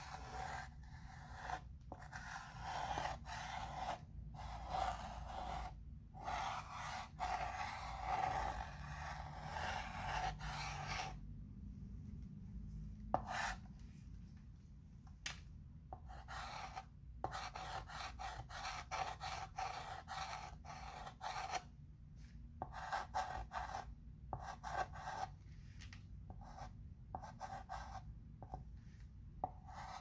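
Chalk pencil scratching across a chalkboard in a run of short writing strokes, each broken off by a brief pause as the tip lifts. About halfway through there is a quieter stretch of a couple of seconds with one sharp tap.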